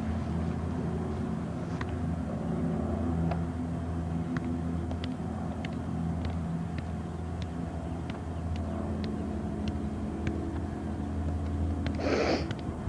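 A steady low rumbling hum with faint scattered ticks, and a short hiss near the end.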